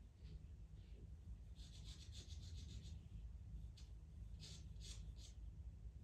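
Pastel pencil scratching on pastel mat paper in short, light strokes that draw fine fur lines: a faint scratchy sound, with a quick run of strokes about two seconds in and a few single strokes later.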